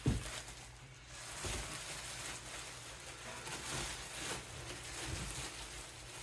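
Handling noise as parts are unpacked: a knock at the start, then light rustling and scattered soft knocks.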